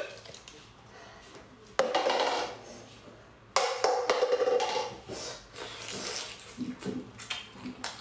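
Glass jar of braised shell-on shrimp tipped over a plate: a click, then two louder wet, sliding bursts as the shrimp come out. After that, small irregular crunching as a shell-on shrimp is chewed.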